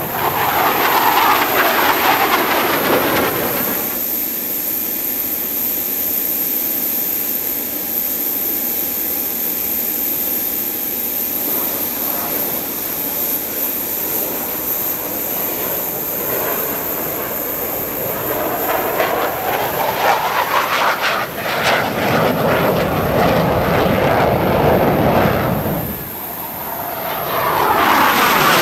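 Jet engines of KAI T-50B Golden Eagle trainers, each with a single General Electric F404 turbofan, roaring past in low display passes. The roar sweeps up and down as jets pass at the start, stays steadier and more distant through the middle, then swells into another long pass in the second half, dips briefly near the end and builds again as more jets arrive.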